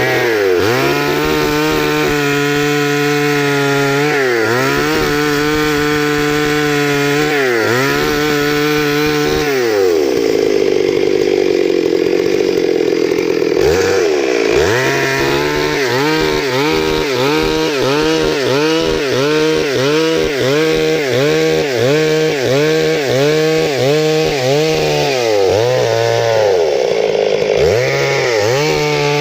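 Stihl MS 382 two-stroke chainsaw running after a stuck-piston repair, its throttle revved up and dropped back again and again. At first the revs are held for a few seconds each; past the middle the throttle is blipped quickly, about once a second.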